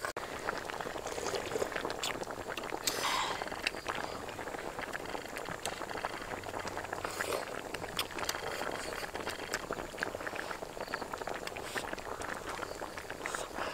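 Soup with boiled duck eggs being eaten from a bowl: slurping and chewing, with many small clicks throughout and a louder stretch about three seconds in.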